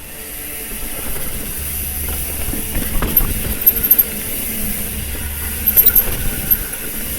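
Trek Fuel EX mountain bike ridden along a dirt trail: steady tyre and wind rumble, with the bike clattering sharply over bumps several times around the middle and again about six seconds in.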